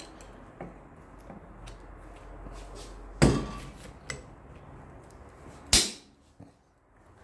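Two sharp metallic clanks, about two and a half seconds apart, as a pipe wrench is forced against the inner tie rod of a steering rack to break it loose. Between them there are only small handling ticks.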